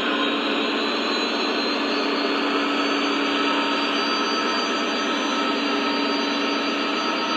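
Model Burlington Northern diesel locomotives running past with a coal train: a steady whir of motors and wheels on the track, with a few steady hums over it.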